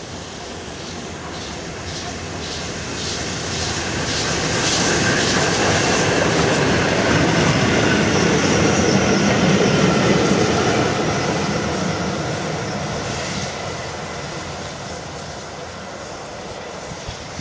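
LNER A1 class 4-6-2 steam locomotive Tornado, with its support coach, passing at speed. The rumble and clatter of wheels on rail build up as it approaches, with regular sharp clicks. It is loudest for several seconds around the middle while it goes by, then fades as it runs away.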